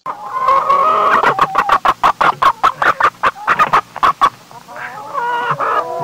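Chicken clucking: a quick run of short clucks, about five a second, for some four seconds, then a few longer, drawn-out calls near the end.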